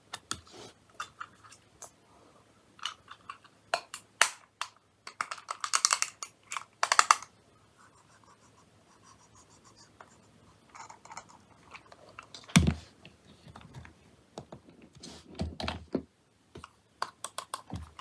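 Keyboard keys being pressed, in scattered clicks and short bursts of fast typing, with one louder thump just past the middle.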